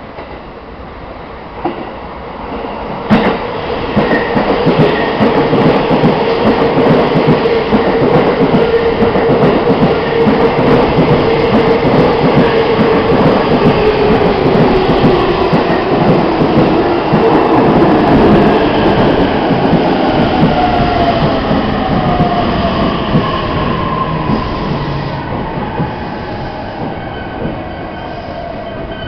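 JR East E233-3000 series electric train arriving at a platform: rail and wheel noise swells loud after a sharp click about three seconds in, then a falling whine as it slows, ending quieter near the end. The recording is loud and distorted by clipping.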